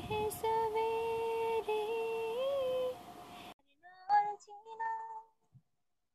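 A woman singing a slow melody in long held notes with gentle pitch slides. The sound cuts off abruptly about three and a half seconds in, then a few quieter sung notes follow.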